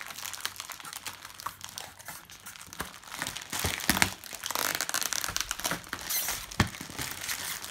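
Plastic packaging bags crinkling as they are handled and cut open with scissors, with scattered clicks and snips. The crinkling is loudest around the middle.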